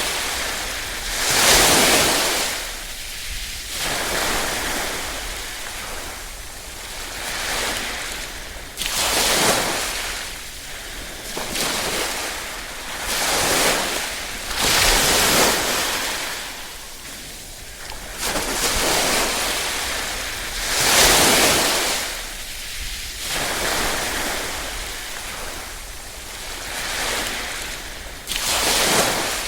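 Small ripple waves washing ashore, each a hissing surge of water that swells and falls away, about every two to three seconds.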